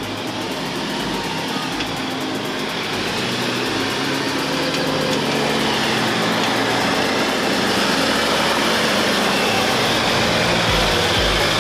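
JL Jeep Wrangler engine running at low speed as the Jeep crawls down a dirt trail, growing gradually louder as it comes closer.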